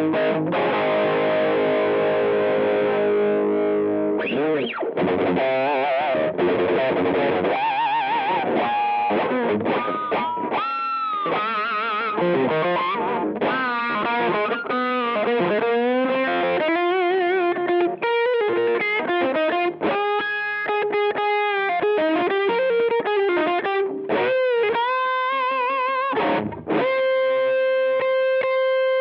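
Electric guitar played through a Tate FX Hot Coals treble booster, a Dallas Rangemaster-style pedal. A chord rings for about four seconds, then a lead line of single notes with string bends and vibrato follows, ending on a long sustained note with vibrato.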